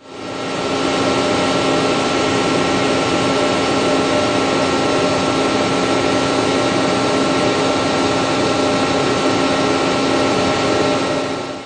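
Instron screw-driven tensile testing machine running steadily: a constant mechanical hum and hiss with several steady whining tones, fading in over about the first second.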